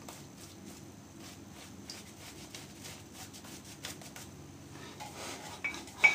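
Gillette 1930 New open-comb safety razor with a Supermax blade scraping through lathered stubble in many short strokes. Near the end there is a sharp knock, the loudest sound, with a smaller one just before it.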